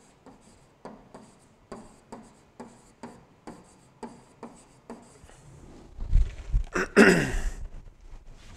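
Stylus tapping and scratching on a pen-input screen as words are handwritten, with short ticks about two or three a second. About six seconds in come a louder burst of low thumps and a rustling whoosh.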